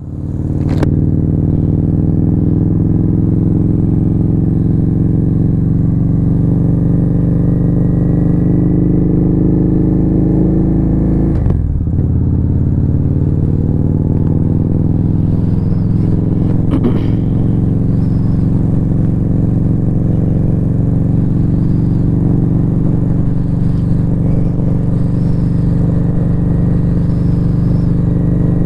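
Victory Highball's big air-cooled V-twin engine running steadily at low revs, with a brief dip in its note near the middle and a couple of short clicks.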